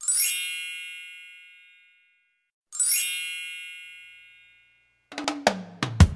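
Two bright, sparkling chime sound effects, each ringing out and fading over about two seconds. About five seconds in, a quick run of drum hits starts a piece of music.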